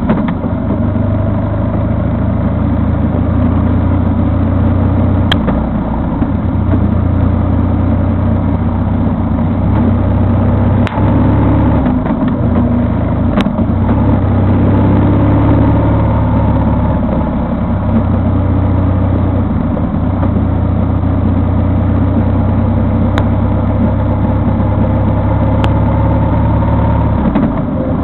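A vehicle's engine running steadily on the move, with a low drone and road noise. The drone drops briefly a few times.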